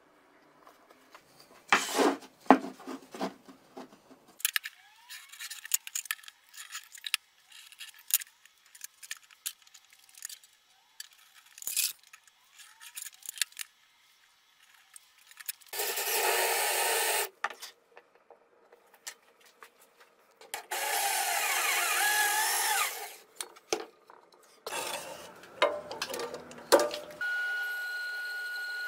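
Wooden knocks from handling plywood and a vise jaw, then light taps and scratchy strokes while marking out plywood, and two loud bursts of a power tool working wood. Near the end a band saw starts and runs steadily with a constant whine.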